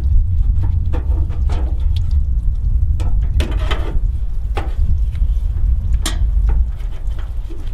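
Scattered sharp clicks and knocks of metal being handled as a tractor fuel-tank sending unit is worked out of its opening, over a steady low rumble.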